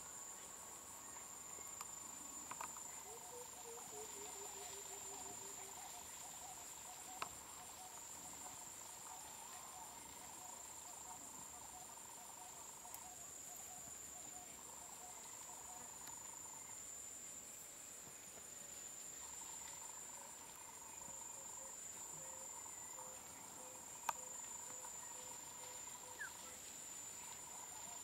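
Steady, high-pitched, unbroken chirring of insects, with fainter lower pulsed trills coming and going beneath it and a couple of brief clicks.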